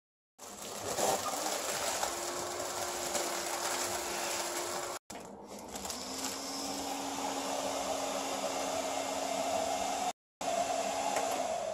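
WiAIR-1000 air cushion machine running, blowing air into plastic film to fill air pillows. It is a steady whooshing blower with a hum that steps down in pitch partway through, broken by two short gaps.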